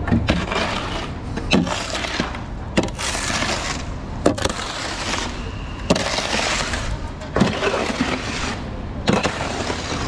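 Wet concrete pouring from a mixer truck's drum and sliding down the steel chute: a steady rushing noise with a sharp clack about every second and a half, over the low run of the truck's engine.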